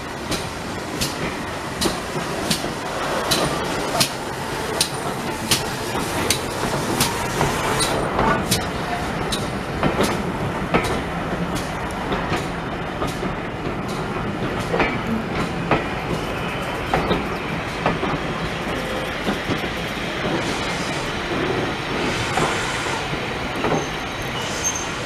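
Passenger coaches of a steam-hauled train rolling slowly past, their wheels clicking over the rail joints. The clicks come regularly at first, about one every three-quarters of a second, then thin out and turn irregular.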